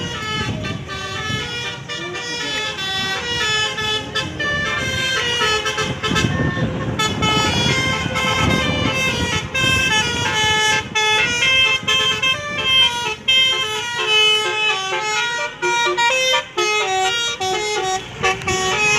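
A bus's basuri (telolet) multi-tone horn playing a melody in quick stepping notes. A passing vehicle's low engine rumble swells about six seconds in.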